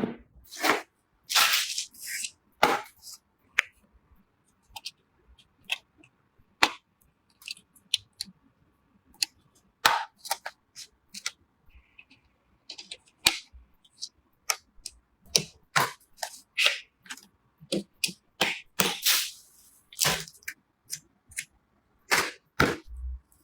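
Irregular sharp clicks and snaps, some with brief rustling, from PC parts and their packaging being handled, opened and clicked into place during an unboxing.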